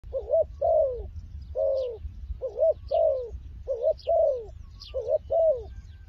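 Spotted dove cooing: a phrase of a short wavering coo followed by a longer falling coo, repeated about five times, with faint high chirps from small birds.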